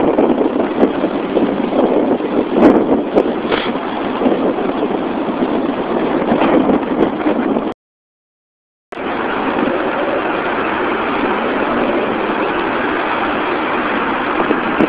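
Wind buffeting a Virgin Mobile Shuttle cell phone's microphone: a rough noise that gusts in the first half, drops out completely for about a second near the middle, then runs steady.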